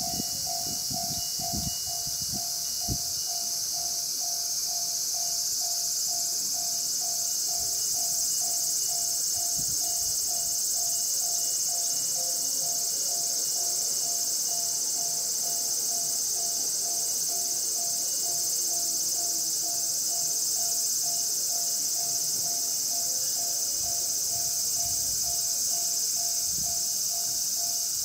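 Japanese level crossing alarm ringing, a tone repeating in a steady on-off rhythm that warns of an approaching train. Behind it, summer insects keep up a loud, high, steady shrill.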